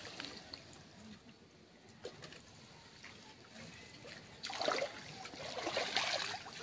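Water trickling and splashing as a monofilament drag net is hauled out of canal water, faint at first and louder from about four and a half seconds in.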